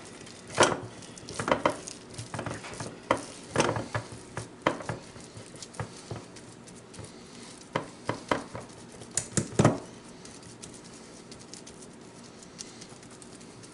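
Gloved hands patting and shaping raw ground-meat meatloaf mixture in a meatloaf pan: irregular soft wet slaps with the odd tap of the pan. The sounds are denser for the first ten seconds or so, then fewer and fainter.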